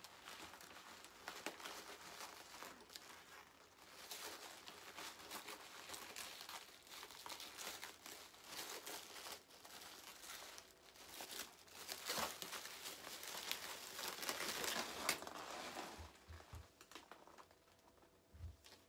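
Plastic packaging wrap crinkling and rustling as it is handled and pulled away from a sewing machine, loudest a few seconds before the end. A few soft low thumps near the end.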